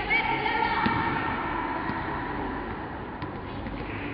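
Echoing sports-hall ambience during a volleyball match: an indistinct din of voices with a short pitched call during the first second and a few faint knocks.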